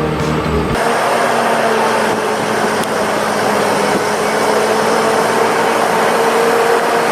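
A machine engine running steadily, coming in on an abrupt cut under a second in.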